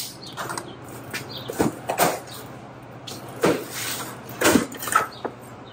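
A long cardboard shipping box being opened by hand: tape slit and the flaps pulled apart, giving about five short, sharp scrapes and crackles of cardboard.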